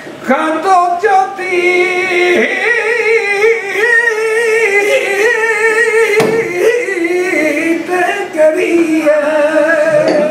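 A man singing flamenco cante unaccompanied: long held, wavering melismatic phrases of a fandango-style song, with a short breath-break about six seconds in.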